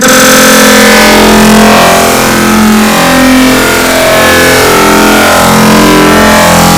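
Sneeze sound effects sped up and reprocessed over and over until nothing of a sneeze is left: a very loud, dense, distorted electronic drone whose tones shift every fraction of a second.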